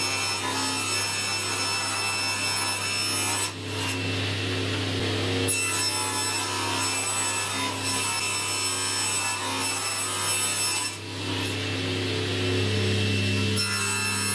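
Table saw running and ripping a laminate board into strips, the blade's steady whine and cutting noise going on throughout, with two brief dips in level.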